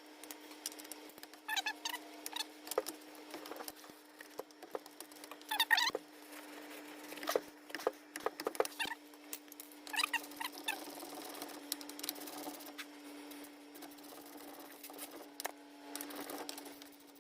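Hand ratchet clicking in short bursts every few seconds as a brake caliper bolt is backed out, over a steady low hum.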